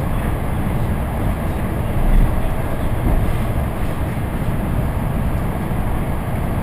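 An ED4M electric multiple unit in motion, heard from inside a passenger car: a steady low rumble of wheels on rails, with one heavier low bump about two seconds in.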